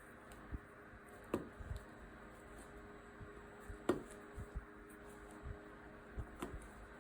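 Hands working fabric loops on a potholder weaving loom: soft handling with light taps and three sharper clicks, the loudest about four seconds in.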